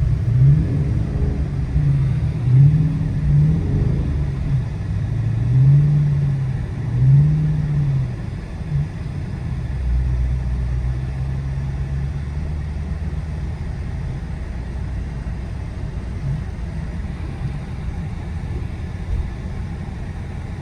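Dodge Charger R/T's 5.7-litre Hemi V8 rising and falling in pitch several times over the first eight seconds or so as it is given gas, then running steadily at a low, even pitch, heard from inside the cabin.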